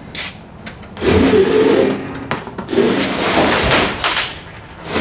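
Metal roof rack scraping and rattling against the fiberglass hardtop roof as it is lifted off, in two rough stretches about a second in and around three seconds, with a knock near the end.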